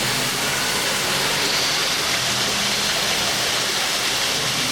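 Steady rushing roar of a waterfall, a constant noise of falling water with no breaks.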